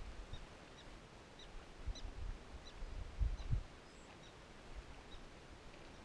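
Wind rumbling on the microphone in gusts, strongest about halfway through. Faint short high chirps repeat about twice a second underneath.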